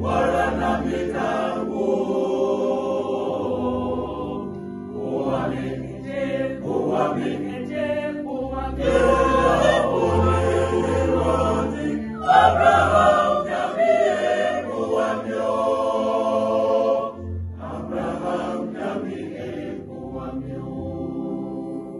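Mixed church choir of men's and women's voices singing together in harmony, phrase by phrase, growing softer in the last few seconds.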